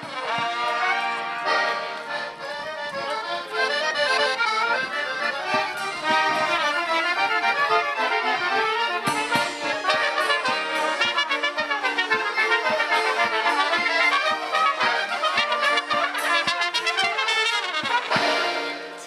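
Polish folk band of violins, trumpet and accordion playing a tune in a quick rhythm, ending on a held chord near the end.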